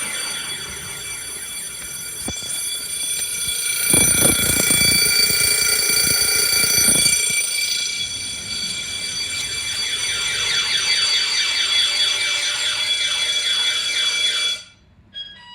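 Scantronic Eurobell external alarm sounder going off after a panic-button trigger: a loud electronic siren tone with rapidly repeating rising sweeps. A low rumble joins it for a few seconds in the middle. The siren cuts off abruptly near the end as the alarm system is reset.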